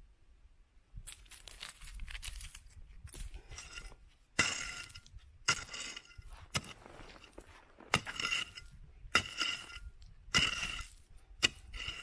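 Crystal and rock fragments scraping, then clinking sharply against one another as they are handled, about eight clinks, each with a short glassy ring.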